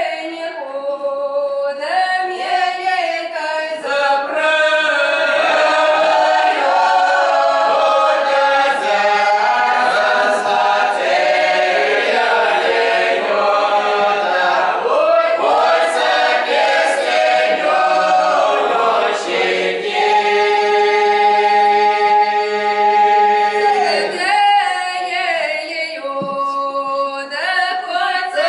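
Mixed folk ensemble of men's and women's voices singing a Russian round-dance (khorovod) song unaccompanied, in several voice parts. Near the end the voices hold one long chord for about four seconds, then go on to the next phrase.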